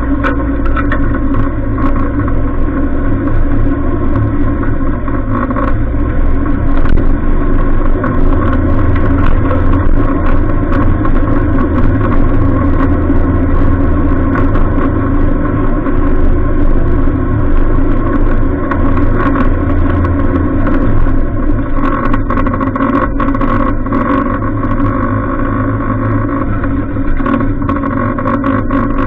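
Off-road vehicle's engine running steadily under load on a rough dirt track, with frequent short knocks and rattles from the vehicle jolting over bumps.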